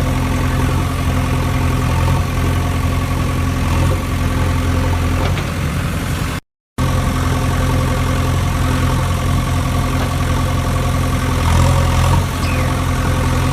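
Steady engine idling hum, broken by a brief cut to silence about six and a half seconds in.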